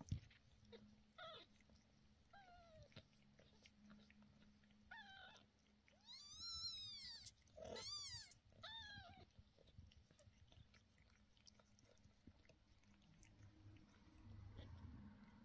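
Eleven-day-old kittens mewing: about six thin, high cries that rise and fall in pitch, the longest and loudest in the middle.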